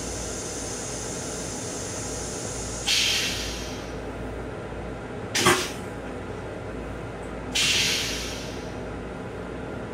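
Steady hiss and hum of an M7 railcar's interior, heard from the restroom, broken by two sudden hisses of air about five seconds apart that each fade over a second, with a sharp knock between them.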